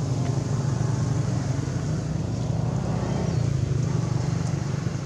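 A vehicle engine running steadily nearby, a continuous low hum.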